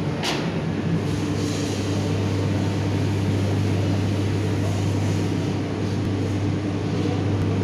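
Steady low machine hum, with one sharp click just after the start.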